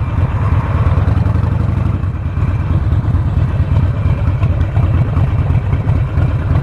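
Harley-Davidson Sportster Forty-Eight's air-cooled V-twin engine running at low revs in slow traffic, with a steady, lumpy, rapid pulsing beat.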